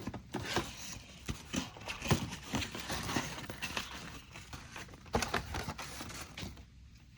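Paper user guides and packaging inserts being handled and shuffled: irregular rustling with light taps and clicks.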